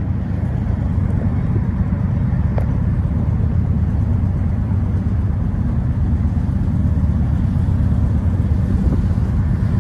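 Steady low rumble of an approaching BNSF freight train's diesel locomotives.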